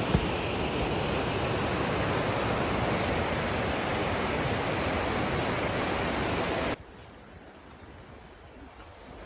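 Fast-flowing river water rushing steadily. It cuts off abruptly about seven seconds in, leaving a much quieter background hiss.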